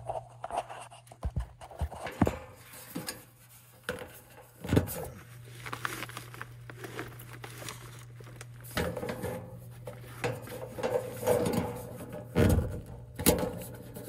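Scattered knocks, clicks and scrapes of a furnace's sheet-metal access door being handled and worked loose, over a steady low hum.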